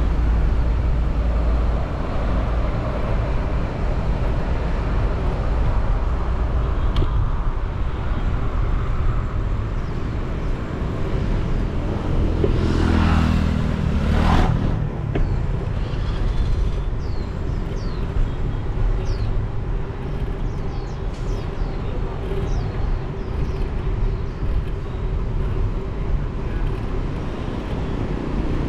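Street traffic heard from a moving motorcycle: a steady engine and road rumble. About halfway through, a vehicle passes close by, its sound sweeping down in pitch as it goes.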